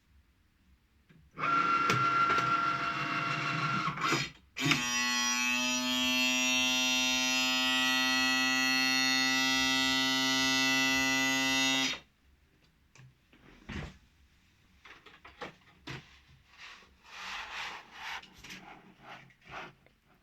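Cricut Maker cutting machine giving out a loud, steady buzzing tone: a burst of about three seconds, a short break, then a drone of about seven seconds that cuts off suddenly. Faint clicks follow. The noise is abnormal; the owner has reported it as a fault.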